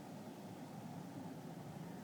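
Steady, even low rumble of a distant jet or plane circling far off, with no change in pitch or level.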